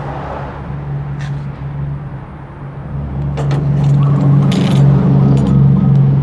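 A steady low mechanical hum that grows louder about halfway through, over the taps and rustle of a cardboard parcel being handled. A short run of clicks just past the middle comes as a yellow box cutter's blade is pushed out to cut the parcel tape.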